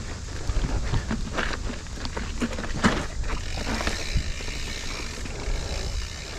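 Mountain bike riding over rough, rocky trail: tyres crunching and the bike rattling and knocking irregularly, under a steady low rumble, with one sharp knock about three seconds in.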